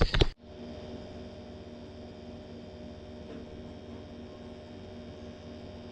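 Burnham Alpine condensing gas boiler running, a steady hum made of several fixed tones over a light hiss, with its combustion blower and burner firing.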